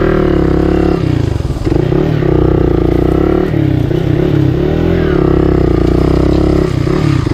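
Hero Xpulse 200's single-cylinder engine being revved hard off-road, its pitch rising and falling over and over.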